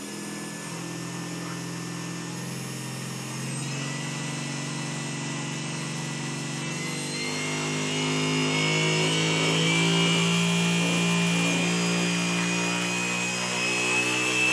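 Brushless quadcopter motor spinning a propeller while the arm is held down, the throttle being raised: a steady motor whine with propeller wash that rises in pitch and grows louder about four seconds in and again about eight seconds in. The propeller is making enough lift to pull the frame up.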